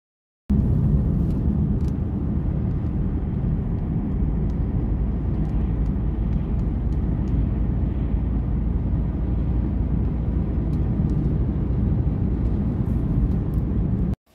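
Road noise inside a moving car's cabin: a steady low rumble of tyres and engine, with a few faint ticks. It starts abruptly about half a second in and cuts off just before the end.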